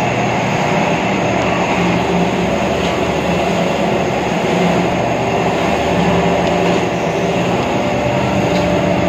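Puffed-rice (muri) roasting machine running: its rotating drum gives a continuous rumble and rattle with a steady hum underneath.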